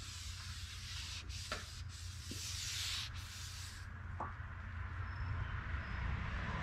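Hand rubbing and wiping over a stainless steel trim piece, a steady scratchy hiss that stops abruptly about four seconds in.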